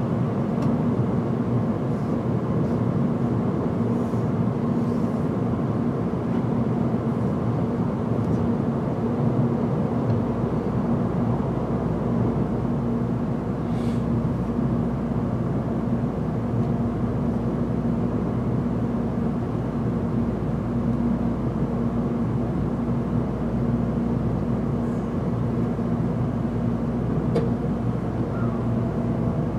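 Tōkaidō Shinkansen train running at speed, heard from inside the passenger cabin: a steady rumble of running noise with a constant low hum.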